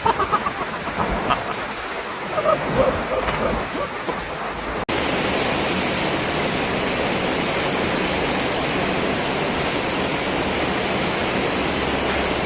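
Floodwater rushing, a dense steady noise of moving water, with faint voices in the first few seconds. About five seconds in it cuts abruptly to a louder, even steadier rush.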